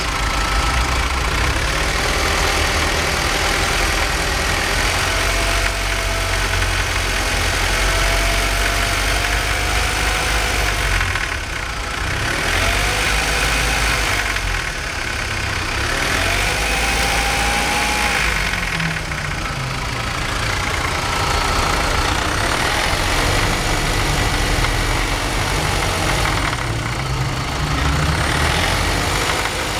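BMW 318i petrol engine idling unevenly, the rough running the video sets out to show. Its note wavers a few times in the middle.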